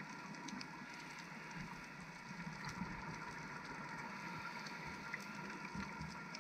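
Underwater reef ambience heard through a camera housing: a steady hiss with faint scattered crackles and clicks.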